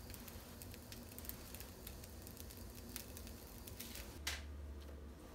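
Faint crackling and ticking of a corn tortilla heating in a nonstick frying pan, with a soft brush of a hand on the tortilla about four seconds in.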